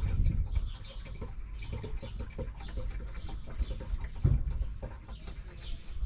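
Diesel being poured from a plastic jug into a diesel heater's plastic fuel tank.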